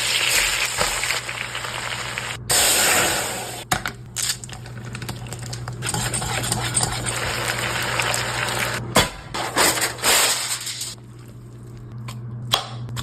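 Liquid hissing and splashing in a cooking pot, in several short clips that cut off abruptly, dropping to a quieter steady hum about eleven seconds in.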